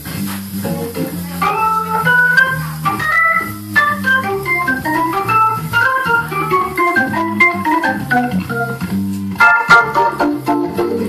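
Hammond organ played solo, with a quick right-hand melody line running over moving left-hand chords and lower notes. About nine and a half seconds in comes a short burst of full chords.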